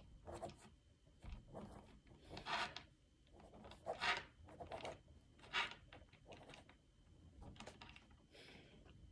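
A series of short, soft rubbing and scraping strokes, made close to the microphone, with three louder ones about two and a half, four and five and a half seconds in.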